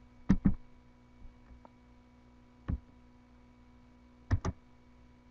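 A few isolated clicks from a computer keyboard and mouse: two about a third of a second in, one near the middle, and two close together near the end, over a faint steady hum.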